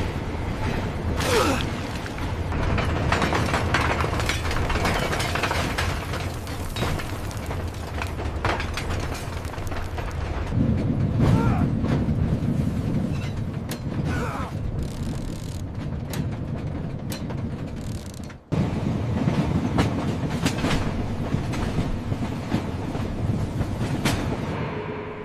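Metal machinery clattering and clanking, with many sharp clicks and knocks. The sound cuts off abruptly about 18 seconds in, resumes at once, and fades out near the end.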